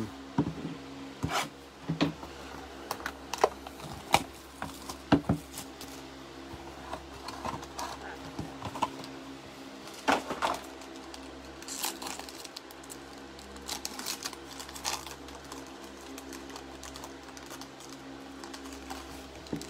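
Sharp clicks and taps of plastic card cases being set into a display stand, then the crinkling of a foil card pack being handled and torn open, over a steady low hum.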